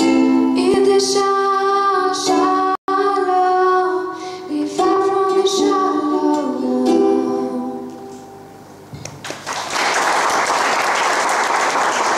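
A girl singing while strumming a ukulele; the song ends on a fading last note about two-thirds of the way in, and audience applause follows.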